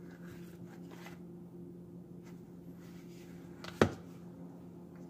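Small hardcover book handled with faint rustles of its covers and pages, and one short sharp tap just before four seconds in as it is set down flat on a cutting mat. A steady low hum runs underneath.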